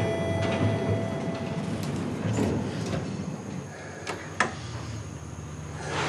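Hospital lift's sliding doors running shut, with two sharp clicks a little after four seconds in.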